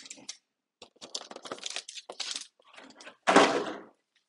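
Trading-card box packaging and booster packs being handled: short rustles and clicks, then a louder noise lasting about half a second a little over three seconds in.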